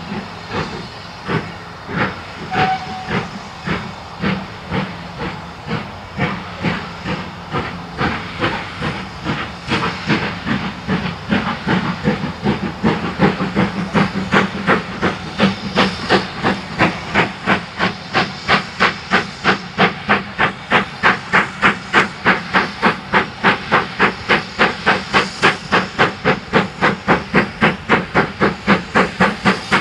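Two steam locomotives, a BR Standard Class 5MT 4-6-0 and a 9F 2-10-0, double-heading a train as it pulls away, with hissing steam. Their exhaust beats gradually quicken from under two to nearly three a second and grow louder as the train gathers speed.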